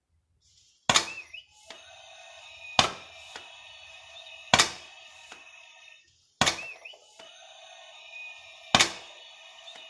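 Toy air gun firing soft EVA foam bullets: five sharp pops at roughly two-second intervals. Between the shots the scoring target plays a steady electronic beeping sound-effect tune.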